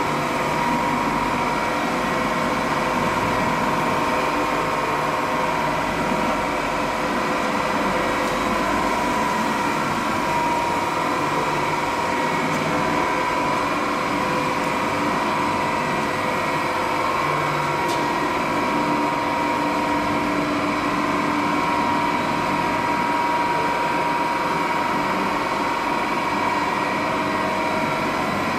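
HDPE pipe extrusion line running: an even mechanical hum from its motors and pumps, with a steady high whine.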